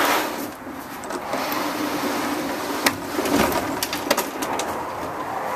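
A plastic Pendaliner truck bed liner scraping over the top of a wooden fence as it is shoved across, a long rubbing drone with a few sharp knocks.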